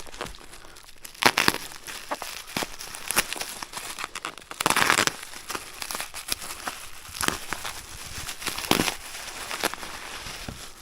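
Packing material crinkling and rustling in irregular bursts as an item is unwrapped by hand, loudest about halfway through.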